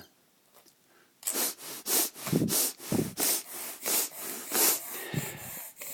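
A toddler eating a freezer pop in its plastic sleeve: a quick run of rubbing and sucking noises, starting about a second in.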